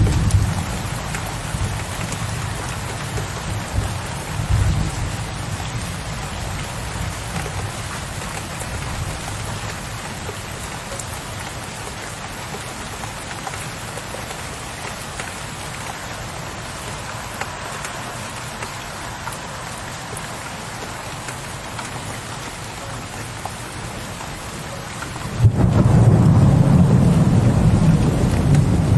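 Steady heavy rain on a window ledge with low, rolling thunder that fades away over the first few seconds. Near the end a new peal of thunder breaks in suddenly and loud, and rumbles on.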